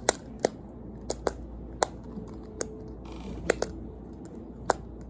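Plastic fidget toys clicking as they are handled: about nine sharp, separate clicks at uneven intervals.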